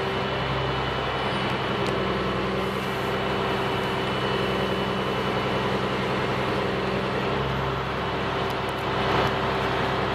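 A vehicle engine running steadily: an even low hum over a haze of noise, with the hum changing a little about eight seconds in.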